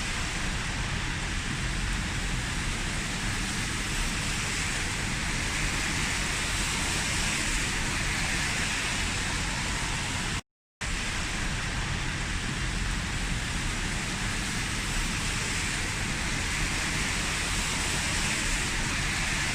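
Heavy rain falling steadily, a dense even hiss with a low rumble underneath. The sound cuts out completely for a split second about ten seconds in, then resumes unchanged.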